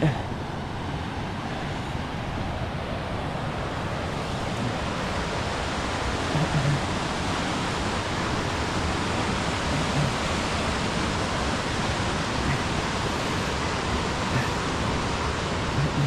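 Steady rushing of a cascading mountain creek, with a few soft footfalls.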